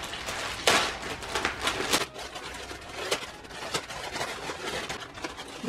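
Gift wrapping paper crinkling and tearing as a present is unwrapped by hand, in irregular rustles and rips, the loudest a little under a second in.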